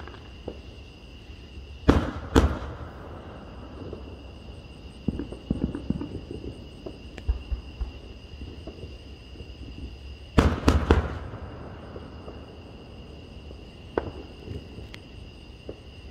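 Aerial fireworks shells bursting in a distant display. There are two loud bangs about two seconds in, then lighter crackling around five to six seconds. A quick cluster of three bangs comes about ten seconds in, and a single bang near fourteen seconds.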